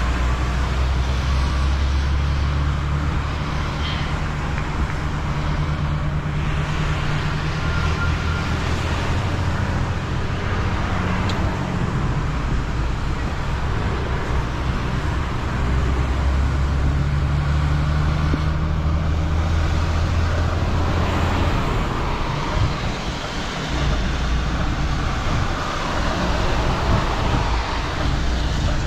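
A 26-ton Volvo recovery truck's diesel engine pulling under load while towing, heard from inside the cab over steady road noise. Its note changes in steps every few seconds.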